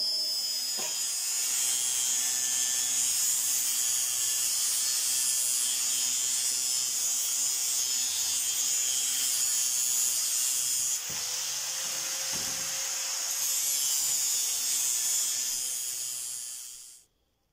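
Angle grinder running continuously on steel square tube, a loud high hiss over a faint motor hum; it eases a little about eleven seconds in and stops near the end.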